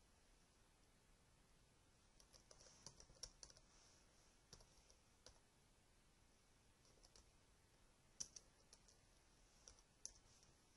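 Faint computer keyboard typing: scattered key clicks in two short runs, from about two seconds in and again from about seven seconds in.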